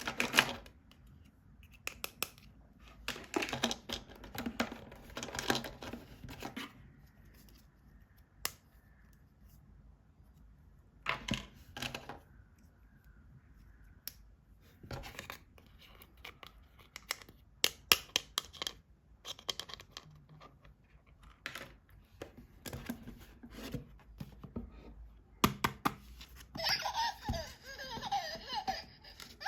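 Toys and packaging being handled: sharp clicks and taps with short spells of rustling and tearing. Near the end a louder, busier sound with pitched lines comes in.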